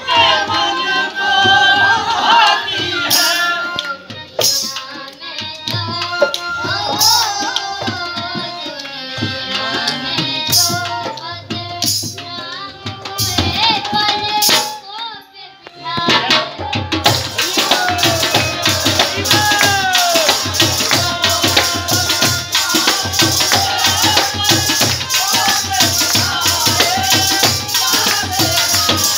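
Live devotional bhajan: a woman singing through a microphone, accompanied by harmonium and hand-drum (dholak). About halfway in the music drops out briefly, then comes back with a fast, even drumbeat and a bright, jingling top.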